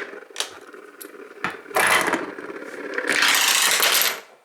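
Two Master padlocks being spun. A few sharp knocks come as they are set going, then two long stretches of loud metal rattling and scraping as they spin against the surface.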